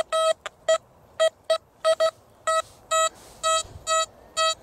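XP Deus metal detector giving a run of short beeps at one steady pitch as it signals a buried metal target. The beeps come irregularly at first, then settle to about two a second.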